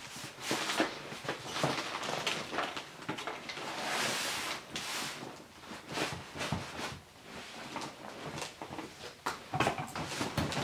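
Metal seat rail frame of a BMW Z3 M Roadster sport seat being pulled, tilted and forced against the seat: a run of clunks, rattles and scrapes, with a longer scrape a few seconds in and a louder knock at the end. The frame resists because an electrical connector is still holding it to the seat.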